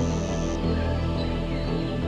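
Background music with held, steady tones.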